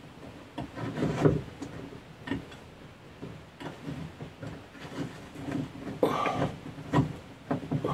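Handling noise of flexible metal-braided hoses being worked through a wooden wall: scattered rubbing, scraping and light knocks against the wood panelling, busiest about a second in and again around six to seven seconds in.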